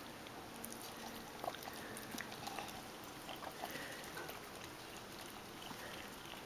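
A miniature pinscher licking yogurt from a plastic cup: faint, irregular licking and small clicks.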